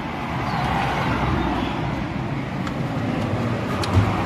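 Steady traffic and vehicle noise with an engine hum, a few light clicks of metal hand tools, and a dull thump about four seconds in.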